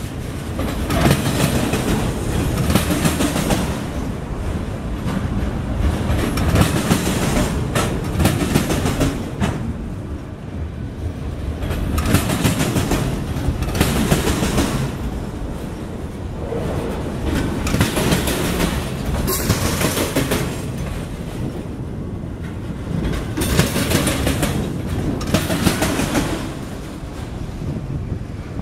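Freight train of multilevel autorack cars rolling past, steel wheels rumbling and clattering on the rail. The clatter swells and fades every couple of seconds as the cars go by.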